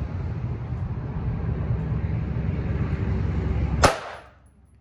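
A steady low rumble, then a single rifle shot about four seconds in, the loudest moment, after which the rumble drops away. The shot is fired to sight in a newly mounted scope.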